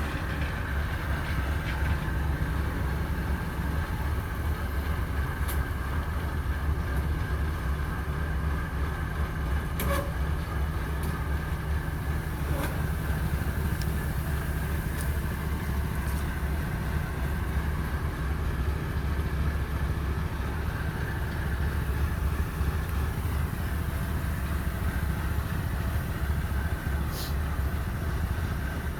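Kubota DC-105X combine harvester running steadily while cutting rice: a continuous low drone from its diesel engine and threshing machinery, with a few faint clicks.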